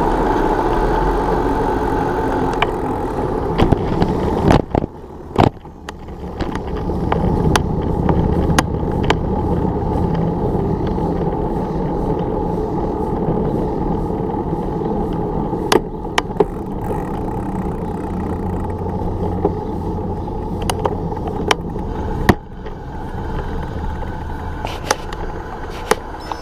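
Steady car and road noise close by, engine and tyres, with a brief dip about five seconds in and scattered sharp clicks.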